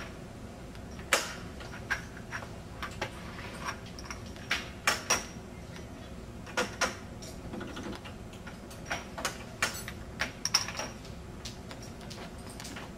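Lab bench work: scattered light clicks and knocks of equipment being handled, at uneven intervals, over a faint steady hum.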